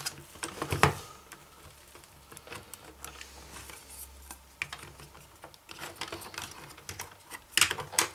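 Plastic clicks and knocks as a battery pack is pushed into the battery compartment in a 1:16 RC tank's plastic hull and the cover is fitted and pressed shut, with a sharp click about a second in and a cluster of loud clicks near the end.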